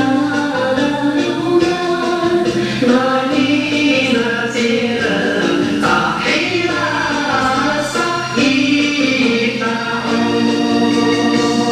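Recorded song playing: sung vocal melody over continuous instrumental backing.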